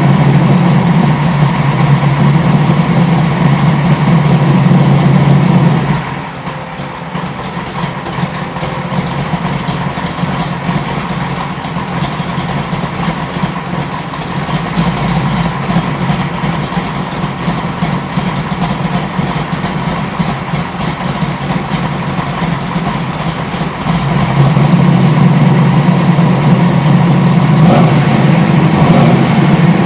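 A 1973 Camaro's 360 cubic inch small-block V8 with a hydraulic roller cam running at idle through a Magnaflow exhaust. It is much louder for the first six seconds and again from about 24 seconds on, with a softer stretch between.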